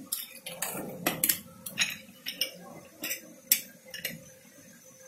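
Steel and glass bowls and a steel spoon being handled and set down on a kitchen counter: a dozen or so short clinks and knocks over about four seconds.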